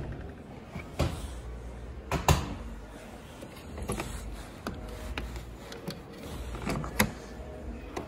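Sharp plastic clicks and knocks from a hand working display front-loading washing machines: a door pushed shut against its latch and a Haier machine's detergent drawer pulled open and pushed back. The sharpest clacks come about two and seven seconds in.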